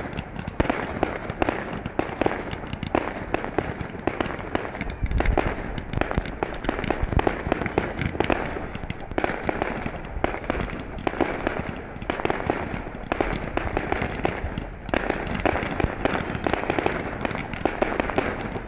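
Ground-launched consumer fireworks cakes firing: a dense, continuous stream of pops and crackles, with an occasional heavier bang.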